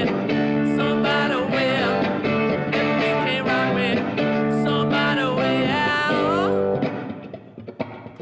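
Rock guitar riff on an electric guitar through an amplifier being tried out, sustained chords with bent notes. It breaks off about seven seconds in, leaving a few quieter picked notes.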